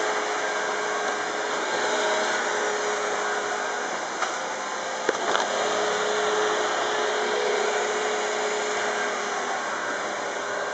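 Small DC hobby motors spinning the lift fan and rear propeller of a homemade battery-powered hovercraft, whirring steadily with a faint hum. A couple of light knocks a little before the middle.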